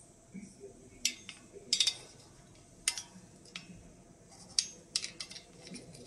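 Glass ФЭУ-85А photomultiplier tubes clinking and knocking against each other as they are turned over in the hands: an irregular scatter of sharp clicks.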